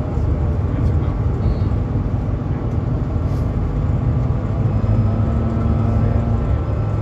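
Bus engine running and tyres on the road, heard from inside the cabin as a steady low rumble. A faint steady hum joins in for a second or so past the middle.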